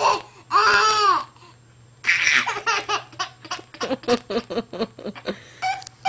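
Baby laughing: a high arching squeal about half a second in, then a long run of quick, short giggles from about two seconds in.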